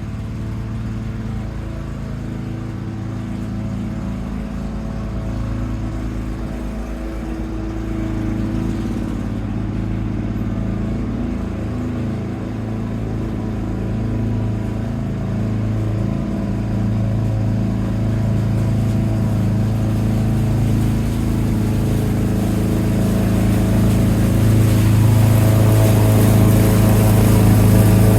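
Two-stroke engine of a 1987 Lawn-Boy 8073B push mower running steadily, growing gradually louder and loudest in the last few seconds.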